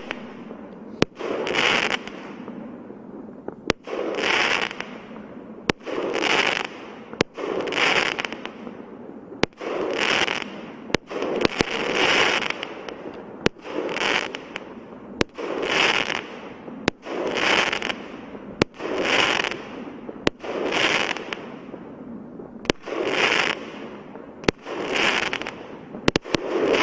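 A 1.2-inch, 19-shot consumer firework cake firing its shots in steady succession, about one every second and a half. Each shot is a sharp launch pop followed by a hissing break of the shell in the air that lasts about a second.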